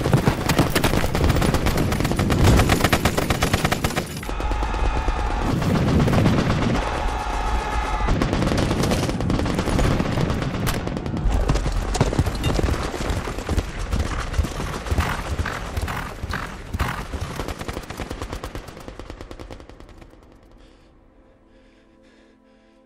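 Rapid, continuous machine-gun and rifle fire from a battle. The volleys fade away near the end, leaving only faint music.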